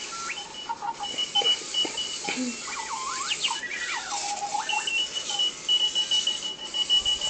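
Electronic alarm clock going off: a run of warbling, sliding electronic tones, then from about five seconds in a steady, rapid high-pitched beeping.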